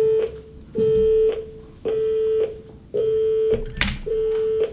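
Electronic telephone tone beeping: one steady beep of fixed pitch, about half a second long, repeating about once a second. A single sharp click sounds near the end.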